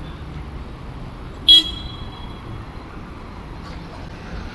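Steady city street traffic, with one short, loud, high-pitched beep about a second and a half in that rings on briefly.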